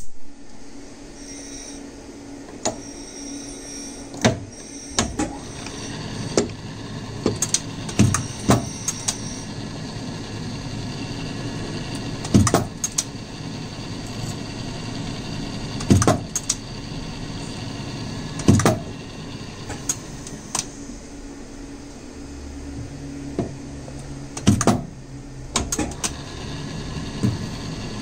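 Small metal lathe running with a steady hum, broken by about a dozen sharp metallic clicks and knocks at irregular intervals as its tooling is swapped and handled.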